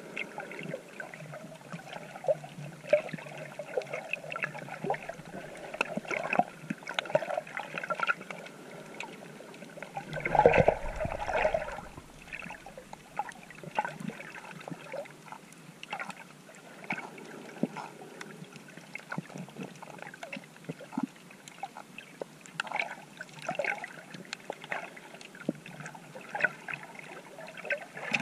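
Water swishing and gurgling around a GoPro while swimming, with scattered small clicks throughout and a louder rush of water about ten seconds in.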